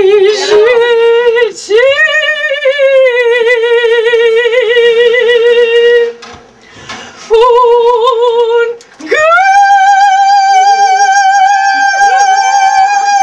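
A woman's voice singing long held notes with a wide vibrato; after a short break about six seconds in, she comes back and then leaps to a higher note about nine seconds in and holds it.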